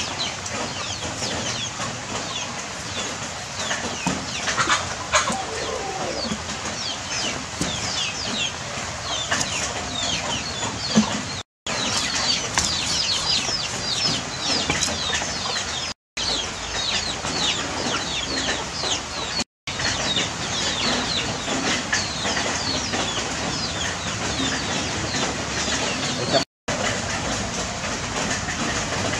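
Many birds chirping steadily, a dense stream of short, high, falling chirps several a second, with one lower falling call about five seconds in. The sound cuts out for a moment four times.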